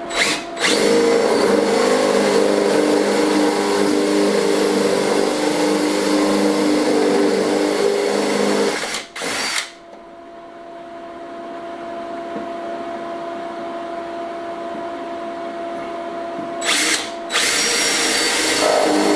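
Cordless drill boring cable holes through an OSB board. It runs in long spells, stopping briefly about nine seconds in and again near seventeen seconds, and runs more quietly for several seconds between them.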